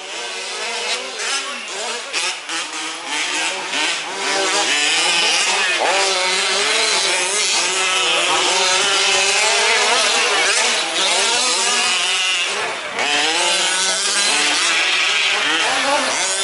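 Several 1/5-scale RC off-road trucks' small two-stroke petrol engines revving up and down together, their overlapping pitches rising and falling as the trucks race around. The sound gets fuller and steadier about four seconds in.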